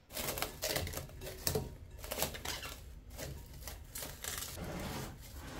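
Plastic cling film being stretched over a glass mixing bowl of dough, crinkling and crackling irregularly.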